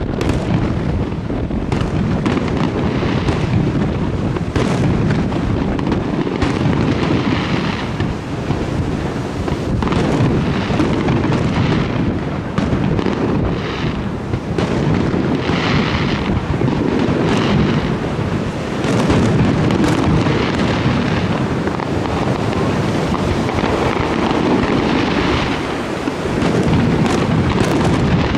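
Aerial fireworks display: shells bursting one after another in a dense, continuous run of overlapping booms. At several points there are spells of crackling from glittering stars.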